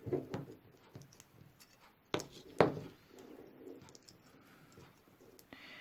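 Hands handling a soldering iron and its parts: a few sharp clicks and taps, the loudest two a little after two seconds in, with faint rustling between.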